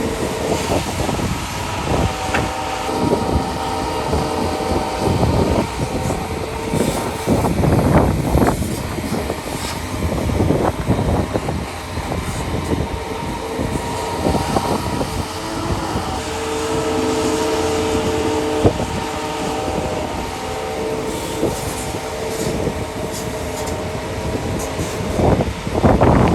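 Heavy diesel earthmoving machinery working: an engine running with a steady whine from the hydraulics, broken by frequent clanks and knocks, with louder surges about a third of the way in and near the end.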